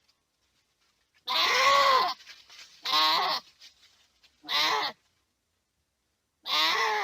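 Goat bleating: four loud, wavering, human-like screaming calls with short silences between, the first the longest.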